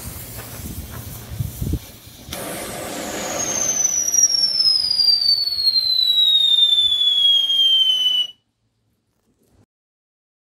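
Potassium benzoate whistle fuel pressed into a 6 mm tube, burning in a static test: a couple of seconds of hissing and crackle as it lights, then a loud shrill whistle that falls steadily in pitch for about six seconds as the fuel burns down the tube, ending suddenly.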